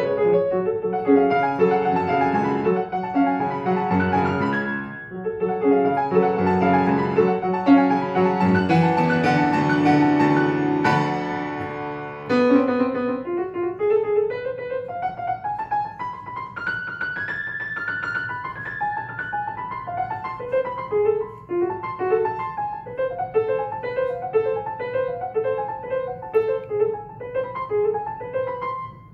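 Solo grand piano playing. The first twelve seconds or so are loud, dense chords and passages. Then a softer section opens with a rising run of single notes and goes on in lighter, repeated figures higher up the keyboard.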